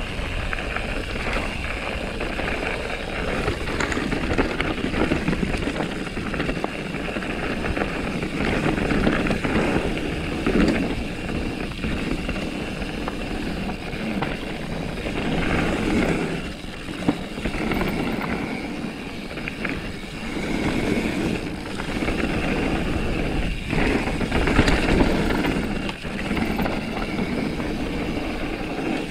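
Mountain bike riding down a dirt trail: a steady rush of tyre and wind noise, with the bike rattling and knocking over bumps again and again.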